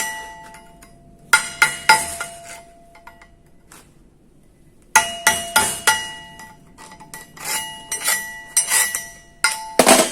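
Chipping hammer striking a freshly stick-welded steel plate to knock the slag off the cap pass: clusters of sharp metallic strikes that ring, a pause in the middle, then a faster run of strikes, the loudest near the end.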